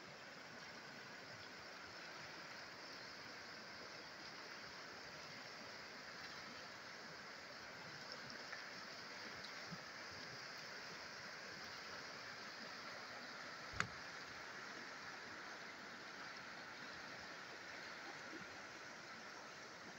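River water rushing steadily over a stony bed and small rapids. A single sharp click about two-thirds of the way through.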